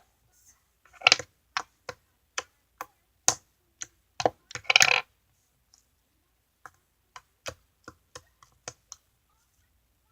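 Sticky slime being poked and squished by hand, giving a run of sharp wet clicks and pops, thick in the first half and sparser later.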